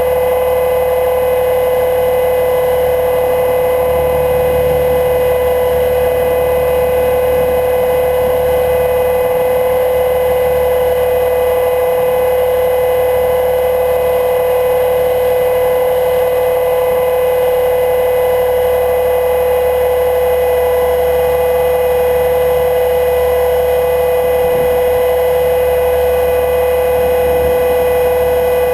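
HK 500 GT electric RC helicopter in flight, its Scorpion 1600KV brushless motor and rotors running at a steady head speed: a loud, constant whine with a low rumble of wind buffeting beneath it that swells now and then.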